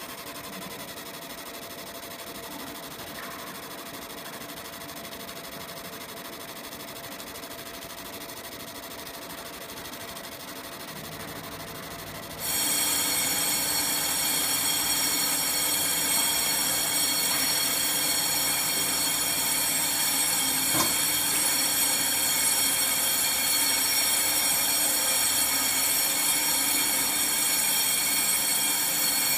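Fiber laser marking machine running while it engraves a copper-clad PCB, a steady mechanical whine made of many fixed high tones. About twelve seconds in it suddenly grows much louder, with a low hum added, and stays at that level.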